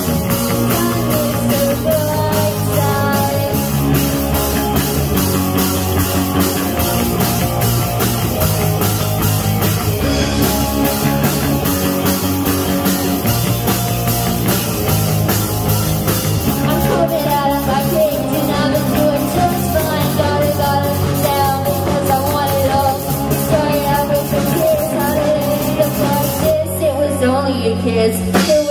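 Live rock band playing: drum kit, electric bass, electric guitars and keyboard, with a young female singer on lead vocals.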